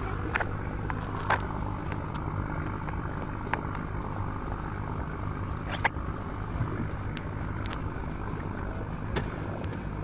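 Outboard motor of an inflatable boat running steadily under way, a low even drone, with a few short sharp knocks scattered through.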